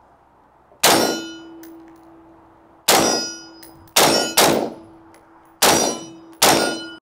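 Six single shots from a Desert Tech MDR-X bullpup rifle chambered in .223, fired at an uneven pace. Each shot is followed by a clear metallic ring from the steel gong target it hits. The sound cuts off suddenly just before the end.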